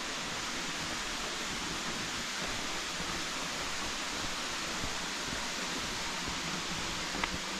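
Flowing water rushing steadily, with a few faint clicks near the end.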